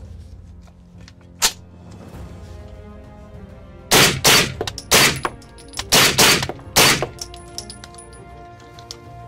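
Suppressed B&T GHM9 9mm carbine firing about six shots in quick succession over roughly three seconds, preceded about a second and a half in by a single sharp metallic clack. Background music plays throughout.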